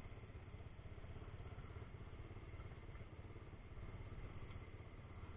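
Small off-road vehicle engine idling steadily, a low, quiet rumble.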